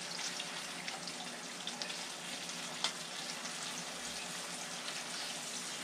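Mangrove snapper fillets sizzling steadily as they pan-fry in a skillet, with a few light clicks of a fork against the pan as the pieces are turned.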